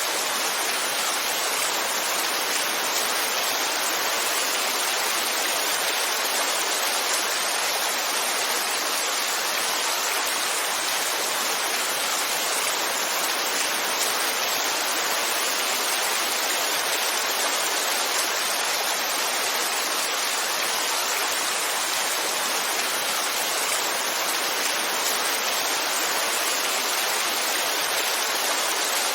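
Heavy rain falling: a steady, even hiss with no separate drops, thunder or other events standing out.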